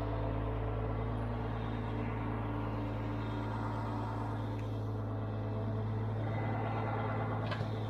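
Heavy mobile crane's diesel engine running steadily under load with a low hum, as the crane lifts a climber into a tree. A short sharp click near the end.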